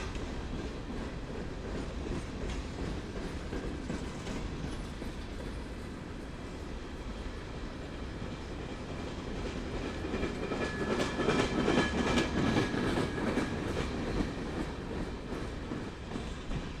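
A train rolling past, its wheels clacking over rail joints over a steady rumble. It gets louder about ten seconds in, with a brief high wheel squeal.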